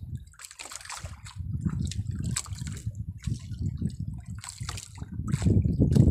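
Water splashing and sloshing irregularly against the hull of a small boat, over an uneven low rumble.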